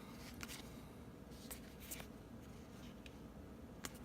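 Faint rustling of trading cards being handled and flipped through, with a few soft clicks as the cards tap and slide against each other.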